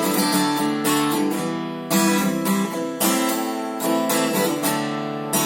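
Acoustic guitar strumming chords in a rhythmic pattern, each stroke ringing on between strums.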